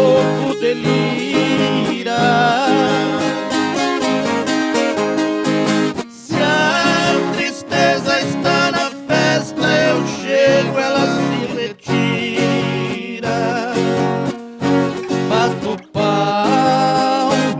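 Viola caipira and acoustic guitar playing an instrumental break between verses of a moda caipira.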